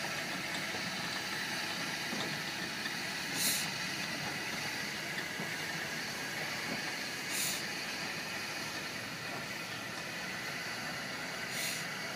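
1893 South African Railways Class 6 steam locomotive moving slowly, with a steady hiss of steam and a brief sharper hiss about every four seconds.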